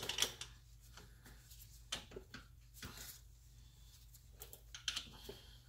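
Scattered faint clicks and taps of a steel bolt and the mid-shaft bracket being handled as the bolt is started by hand, over a steady low hum.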